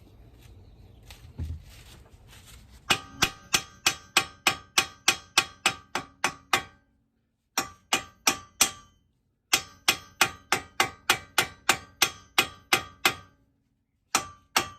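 Hammer tapping on steel front-suspension parts to drive a part that is not seated into place. The strikes ring metallically and come quickly, about three a second, in runs broken by two short pauses.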